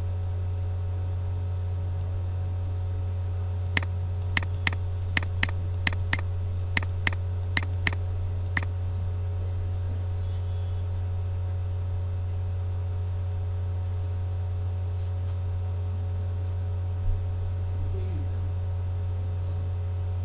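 Steady low electrical mains hum, with a quick run of about eleven sharp clicks, roughly two a second, between about four and nine seconds in, and one more click near the end.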